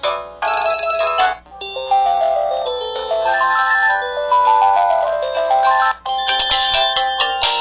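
Samsung SPH-V4900 mobile phone playing its built-in ringtone melodies one after another. A short clip plays first, then a melody of about four seconds, then another begins a little after six seconds.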